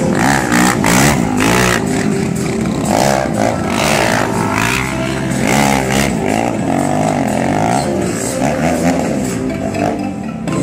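Sport motorcycle engine revving up and down over and over as it is ridden through stunts, its pitch rising and falling repeatedly.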